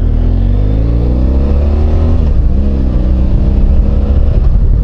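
Motorcycle engine accelerating, its pitch rising, dipping at a gear change about two seconds in, then rising again through the next gear, over a low wind rush.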